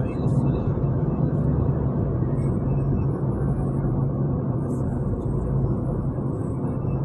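Steady road noise of a car driving at highway speed: an even low drone of tyres and engine.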